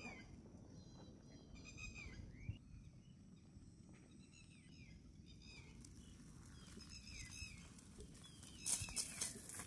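Birds chirping faintly, in short scattered calls, over quiet outdoor background hiss. A few short, louder knocks come near the end.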